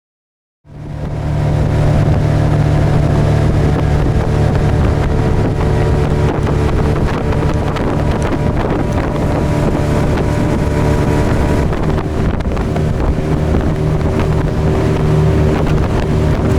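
Boat's outboard motor running steadily under way, with wind buffeting the microphone.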